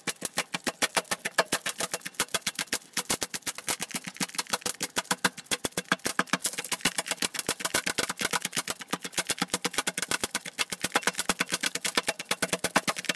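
Bubble wrap popping in a fast, steady run of sharp pops, about seven a second.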